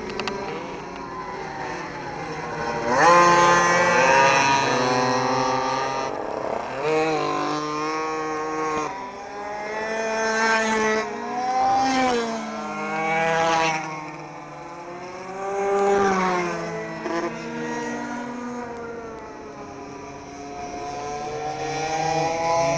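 Several Blata minimoto pocket bikes with small two-stroke engines racing on a track, their high-pitched engine notes repeatedly climbing and dropping as riders rev through the corners, overlapping one another. The bikes are loudest as they pass close, about three seconds in and again around twelve and sixteen seconds.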